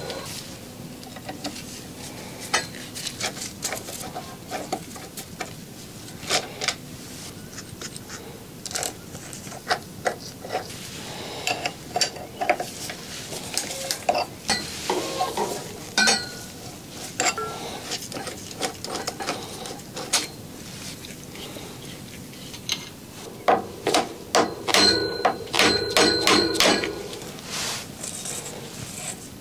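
Metal hand tools clicking, knocking and scraping against an e-bike's crank bolt and chainring, irregular single clicks at first, then a quick run of loud, ringing metal clinks near the end.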